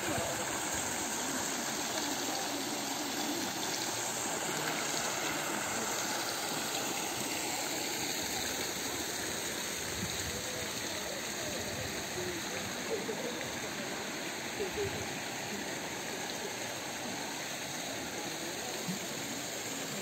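Water spilling over a small concrete check dam and running over rock, a steady even rush. The flow is thin after a few days without rain.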